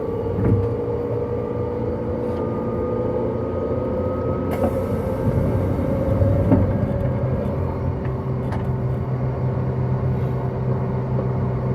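JR 185 series electric train heard from inside a car while running: a traction motor and gear whine rises slowly in pitch and fades a little past halfway, over the steady rumble of wheels on rail, with a few sharp clacks from rail joints.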